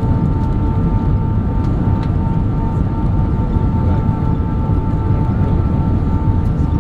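Cabin noise of an Airbus A320 on final approach, heard from a window seat over the wing: a steady rumble of airflow and engines with a few high whining tones held over it.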